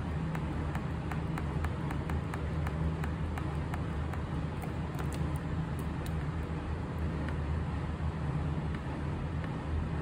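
Quick light clicks of buttons being pressed repeatedly on a Daikin wired air-conditioner remote controller, frequent for the first six seconds or so and then only occasional, over a steady low hum.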